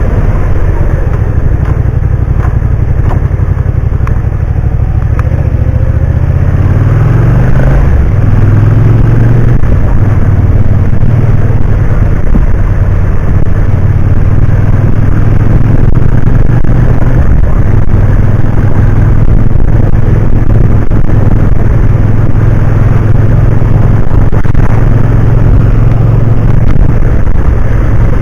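Car engine and road noise inside the cabin, picked up by a dashcam. The engine pitch climbs about six to eight seconds in, then holds steady as the car drives on.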